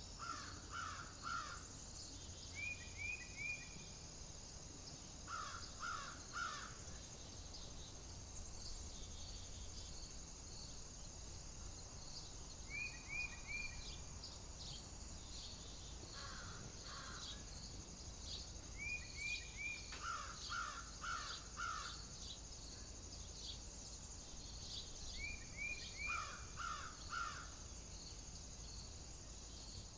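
Birds calling outdoors in repeated short series of three or four notes, a higher series followed a couple of seconds later by a lower, harsher one, recurring every few seconds. A steady high-pitched insect drone runs underneath, with scattered faint chirps.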